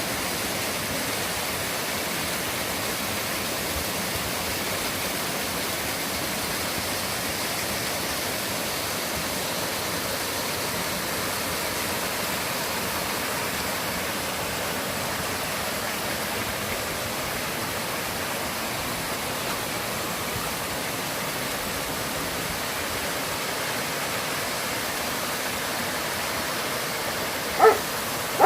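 Mountain valley stream rushing steadily. In the last second, a loud series of short pitched yelps begins, about three a second.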